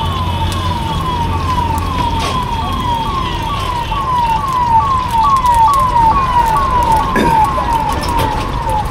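An electronic siren or warning sounder giving a rapid string of short falling whoops, about two and a half a second, getting louder for a few seconds about halfway through.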